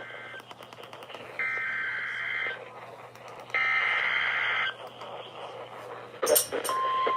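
Emergency Alert System SAME header from NOAA Weather Radio: warbling digital data bursts about a second long, the first just ending, then two more a second apart, with scattered static clicks. After a short crackle, the steady single-pitch 1050 Hz attention tone starts about 6.7 seconds in.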